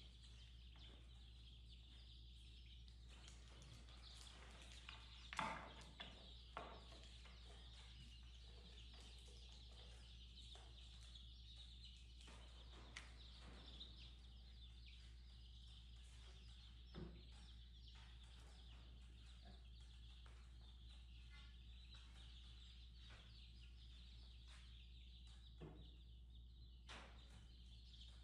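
Faint, steady peeping of a brood of week-old chicks, over a low hum, with a few light knocks of the wooden brooder frame; the loudest knock comes about five seconds in.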